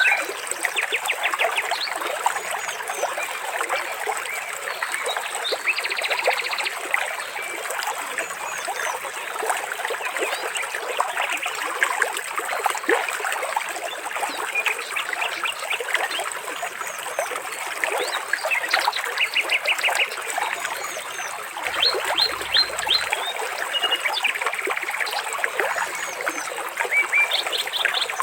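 Water trickling and splashing steadily, with small birds chirping and giving several short rapid trills over it.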